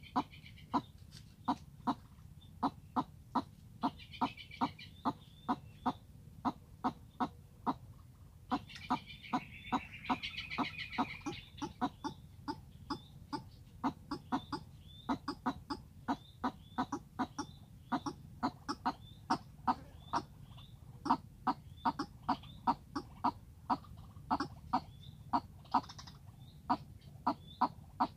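A caged decoy bird calling a long run of short, sharp clucking notes, about three a second, to lure a wild bird to the trap. Bursts of higher chatter come in about four seconds in and again around nine to eleven seconds.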